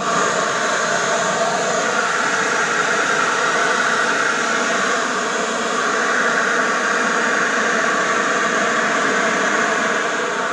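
Gardena PowerJet cordless battery leaf blower running steadily: a constant rush of air with a whine from the fan.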